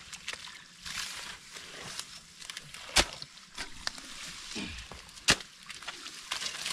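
Hoes (jembes) chopping and scraping into wet soil and mud, with two sharp strikes standing out about three and five seconds in and softer scraping between them.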